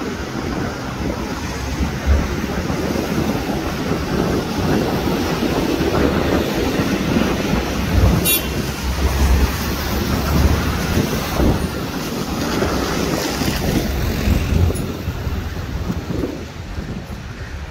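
Road traffic passing on a multi-lane road, tyre and engine noise swelling and fading as vehicles go by, with wind rumbling on the microphone.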